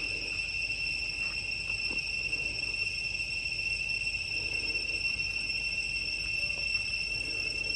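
Steady high-pitched insect drone, unchanging throughout, with faint rustling underneath.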